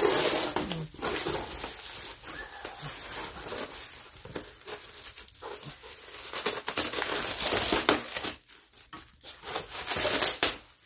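Plastic stretch wrap crinkling and tearing as it is slit with a utility knife and pulled off foam packing, in uneven bursts of crackling.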